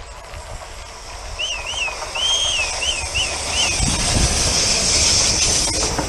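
An electric passenger train approaching on the line alongside, its hiss of wheels and rail growing louder from about two seconds in, with wind buffeting the microphone. A run of six short, high, arching chirps sounds over it in the first half.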